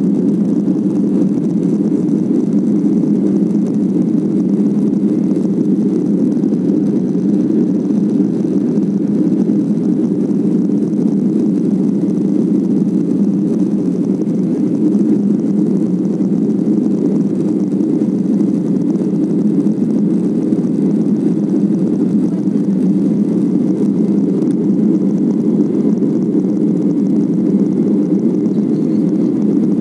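Steady rumble of a jet airliner's cabin, heard from a window seat as the engines and airflow carry the plane up through its climb.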